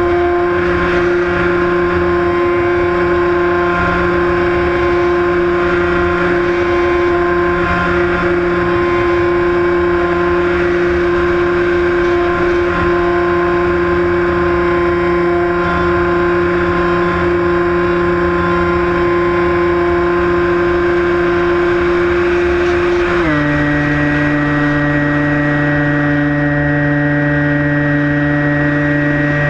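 The Skywalker 1680's electric motor and propeller run with a steady whine at cruise throttle, with wind rushing over the onboard microphone. About three-quarters of the way through, the pitch steps down to a lower steady note as the throttle is eased back.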